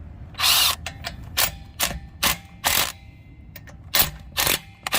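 DieHard 20V 1/2-inch cordless impact wrench fired in short blips on lug nuts: about seven brief bursts of hammering, a couple slightly longer, giving the nuts a final tightening.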